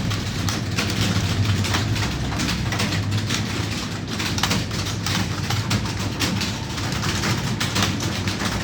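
Many computer keyboards clattering at once as a room of typists type at speed: a dense, irregular stream of key clicks over a low steady hum.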